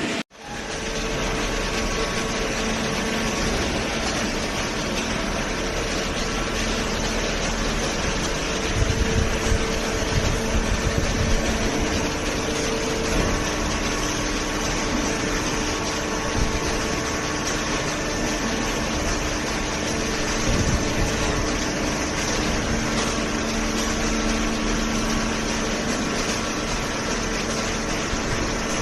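Vertical hydraulic baler's motor and hydraulic pump running with a steady hum, with a few low thuds about nine to twelve seconds in.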